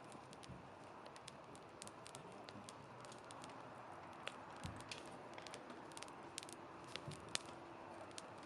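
Wood campfire burning, with irregular sharp crackles and pops over a soft hiss, a few of them louder.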